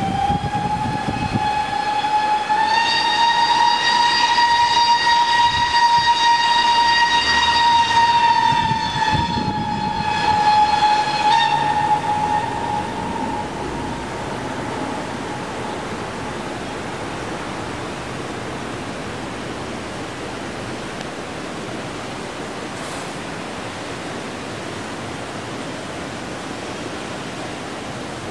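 Narrow-gauge steam locomotive's whistle sounding one long blast of about eleven seconds. It steps up slightly in pitch a couple of seconds in, then dies away. A steady rushing noise is left behind it.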